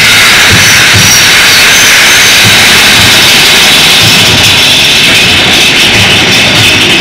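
Big Thunder Mountain Railroad mine-train coaster running through a dark tunnel: a loud, steady rush of wheels on track and moving air, with scattered low thumps.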